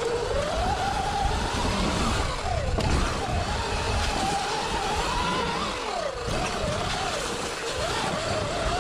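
Sur-Ron electric dirt bike's motor whining as it is ridden along a dirt trail, the pitch of the whine rising and falling continuously with throttle and speed, over a steady rumble of wind and trail noise.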